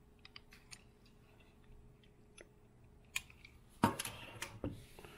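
Small die-cast metal toy cars being handled, picked up and set down on a table: faint light clicks at first, then a few sharper knocks and some rustling about four seconds in.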